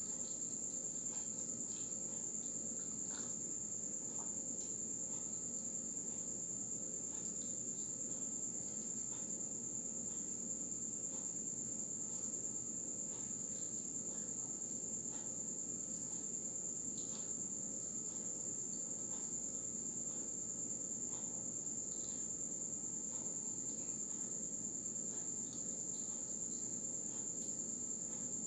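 A cricket trilling in one unbroken high-pitched tone, with faint crunchy chewing clicks from someone eating a fried turon.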